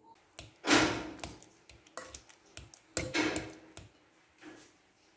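A fork mashing ripe avocado in a glass bowl: two longer mashing strokes, a little under a second and about three seconds in, with a few light clicks of the fork against the glass between them.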